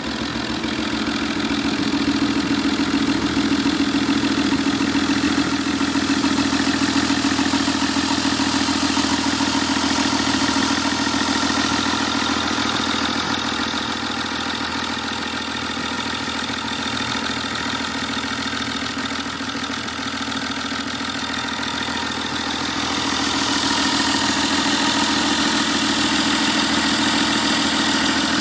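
BMW N57 3.0-litre straight-six diesel idling steadily, running on its newly fitted timing chain.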